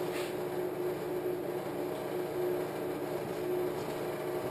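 Steady electrical hum with a faint higher buzz from a car amplifier test rig driving a 40 Hz test tone into a dummy load, with the signal at the edge of clipping.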